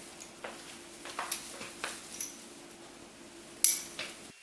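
Light clicks and knocks of hard pushchair parts and packaging being handled while unboxing, about five separate taps with the sharpest one near the end, over a faint steady hum.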